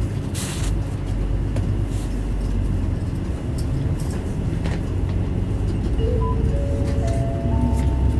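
Isuzu Erga Mio city bus (PA-LR234J1) heard from inside while running: a steady low diesel engine rumble with a few short rattles, and near the end a whine that rises in steps.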